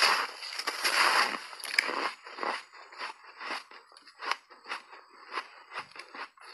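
A person biting into and chewing a chunk of frozen ice coated in matcha tea powder: a loud, dense crunch at first, then separate crisp crunches of chewing about twice a second that slowly grow fainter.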